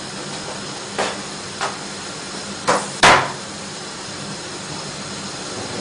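Cubed cheeses being added to a pan of cooking spinach: four short knocks, the last the loudest, over a steady hiss from the pan.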